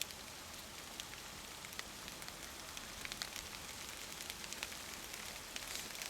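Light rain falling on surfaces: a faint steady patter with scattered small ticks of drops striking.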